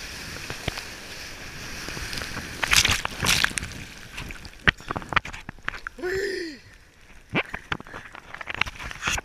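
Breaking wave's whitewater rushing and splashing over a camera mounted at water level on a surfboard: a steady hiss of rushing water, then heavy splashes about three seconds in, followed by scattered slaps and sloshes of foam against the housing. A short pitched sound rises and falls about six seconds in.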